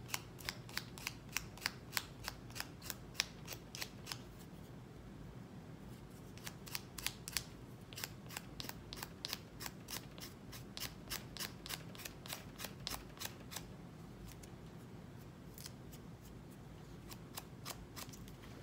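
Nail file rasping along the edge of a fingerboard deck's grip in quick, short strokes, about three a second, to sand the grip flush with the deck. The strokes pause for about two seconds roughly four seconds in, then resume and thin out near the end.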